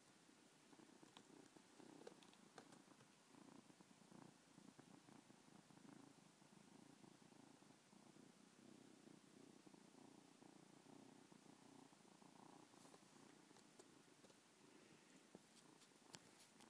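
Persian silver chinchilla kitten purring faintly and steadily, close by. A few light clicks come near the end.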